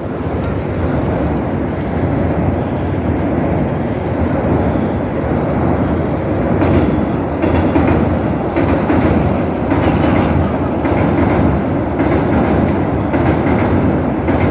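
Subway train crossing a steel railway bridge: a steady, loud rumble of wheels on rails, with a repeated clickety-clack of the wheels over the rail joints from about halfway through.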